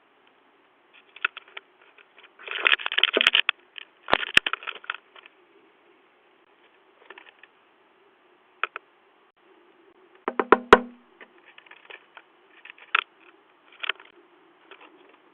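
A woodpecker pecking at a Ring video doorbell: irregular sharp taps with rapid bursts of pecking about two and a half and four seconds in, and another cluster a little past ten seconds. Heard through the doorbell's own microphone.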